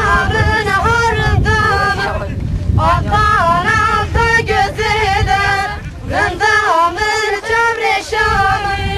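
Folk singing accompanying a line dance: ornamented, wavering melody lines held about a second at a time, over a low rumble. The singing breaks off briefly about two seconds in and again around six seconds.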